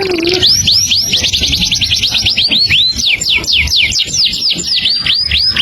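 A songbird singing vigorously: a rapid, unbroken run of clear whistled notes, each sliding down in pitch.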